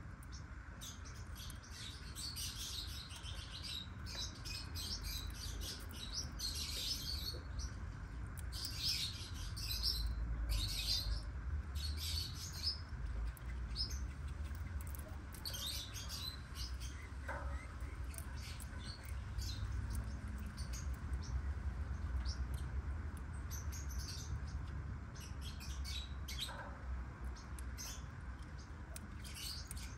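Black-winged lovebirds chirping in quick clusters of short, high-pitched calls, busiest in the first half, over a steady low hum.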